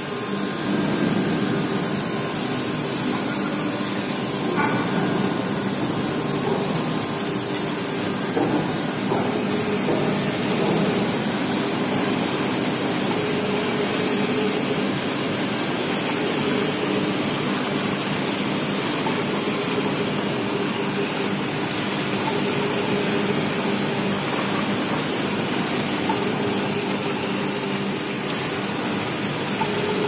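Steady plant noise of a steel melt shop during a furnace tap of molten metal into a ladle: a continuous loud hiss over a steady low machinery hum.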